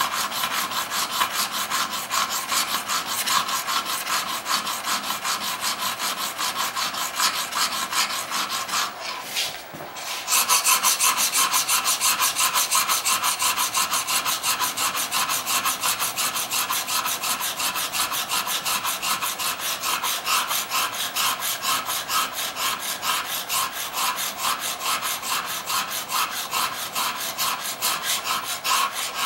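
A steel blade rubbed back and forth flat on a wet DMT diamond stone in rapid, even scraping strokes, flattening and brightening the blade's back. The strokes pause briefly about nine seconds in, then resume louder.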